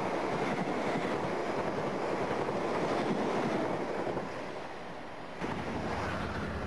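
Passenger train passing close by at speed: a steady rushing rumble of wheels on rails. It eases off after about four seconds, and a second passing train with a heavier low rumble cuts in suddenly near the end.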